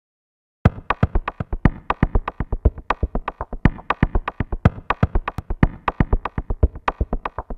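Electronic logo-intro music: a fast run of sharp synthesized percussive hits, about eight a second, starting suddenly about half a second in.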